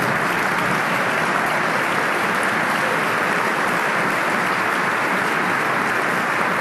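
A large audience applauding, many people clapping together at a steady level.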